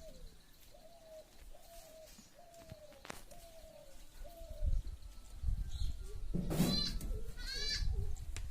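A dove cooing in a run of about seven short, evenly spaced notes, each dropping at the end, then two loud bleats from a goat near the end.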